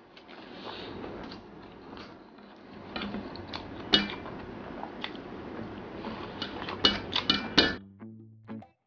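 Eating sounds: fingers pressing and scraping rice on a stainless steel plate, with sharp taps and clicks on the metal and chewing. The clicks cluster loudest near the end. A few notes of background music start just before the end.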